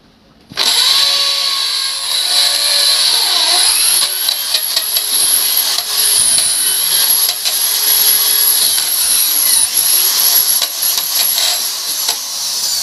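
Corded electric drill boring a hole into a painted wall for a wall plug, starting up about half a second in and running steadily with a high whine.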